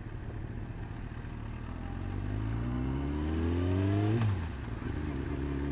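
Yamaha R6 motorcycle's inline-four engine pulling away, its revs rising steadily for a couple of seconds. About four seconds in the pitch drops suddenly at an upshift, then it runs on at a steadier note.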